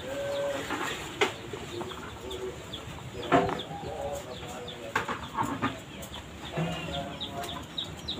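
Chickens clucking now and then in the background, with a few sharp clicks and a fast, regular high ticking throughout.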